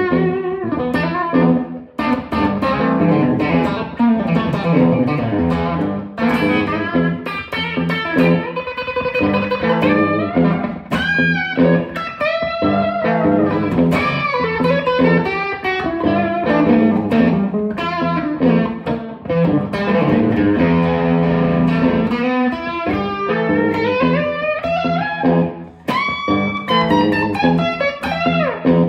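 Stratocaster-style electric guitar soloing: quick single-note runs with string bends.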